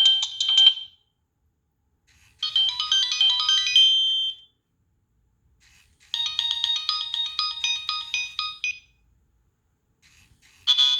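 Nokia 3588i mobile phone playing a preloaded electronic ringtone melody through its small speaker. The phrases come in bursts of two to three seconds, broken by silent gaps of about a second and a half.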